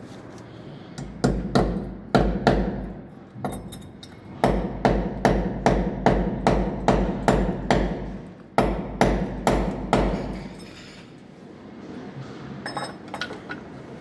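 Hand hammer knocking a small fastener into a concrete wall: three runs of sharp, quick blows, about three a second at their fastest, stopping about ten seconds in.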